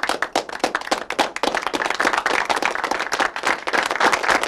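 Applause from a group of people: separate claps that thicken within the first second or so into steady applause.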